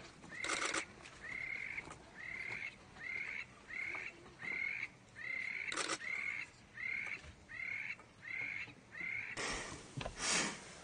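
An animal calling over and over: short high calls at an even beat of about three every two seconds, each bending slightly downward. Two brief harsh noisy blasts come between them, and a louder noisy rush comes near the end.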